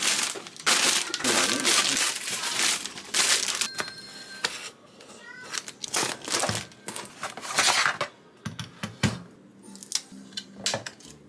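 Plastic packaging crinkling and rustling in irregular bursts as a boxed digital bathroom scale is cut open and unwrapped.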